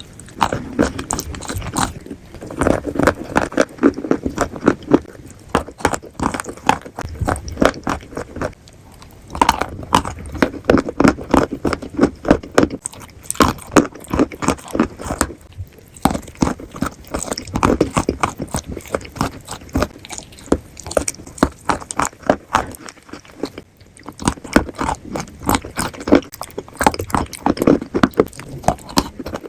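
A person chewing crunchy food: rapid, crisp crunches in runs broken by brief pauses every several seconds.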